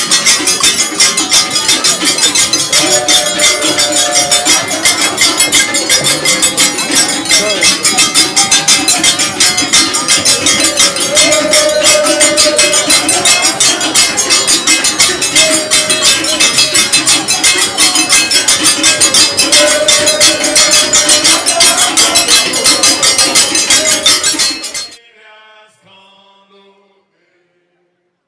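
Loud music driven by fast, steady metallic percussion, with a wavering singing voice over it. It cuts off suddenly near the end, leaving faint voices.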